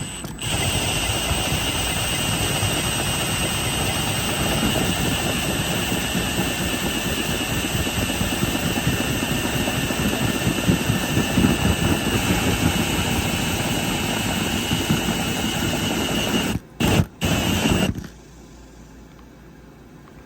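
Cordless drill driving a hole saw, cutting a vent hole: a steady high motor whine over rough grinding chatter. It drops out briefly twice near the end, then cuts off suddenly about two seconds before the end.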